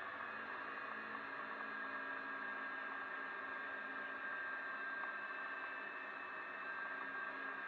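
Steady, dull driving noise of a Jeep rolling along the track: even tyre and wind hiss with a faint, steady high whine over it.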